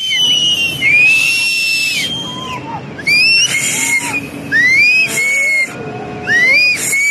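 Onlookers sending up shrill, piercing whistles and screams that rise and fall and overlap, raising the alarm as a flash flood comes down, with bursts of hissing noise from time to time.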